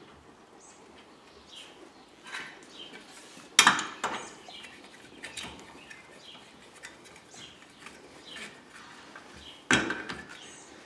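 Light metallic clinks and clicks of lug nuts being threaded onto a space-saver spare wheel's studs and a lug wrench being fitted to the nuts. Two sharper clanks stand out, one about three and a half seconds in and one near the end.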